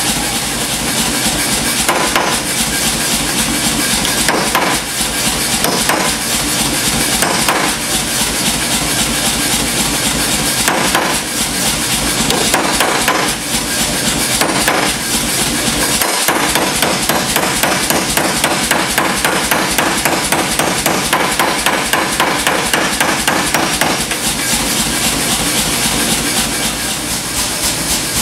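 Blacksmith's hand hammer striking hot iron through forging tools on an anvil, blow after blow in a fast, steady rhythm.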